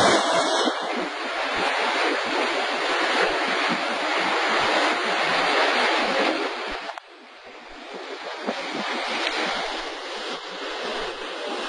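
Muddy floodwater rushing down a street in a flash flood: a loud, continuous rush of turbulent water. It drops off sharply about seven seconds in and builds back up.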